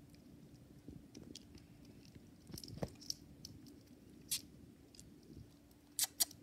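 Dwarf hamster nibbling and cracking seed husks: faint scattered crackles and clicks, with a sharper crack about four seconds in and two more in quick succession near the end.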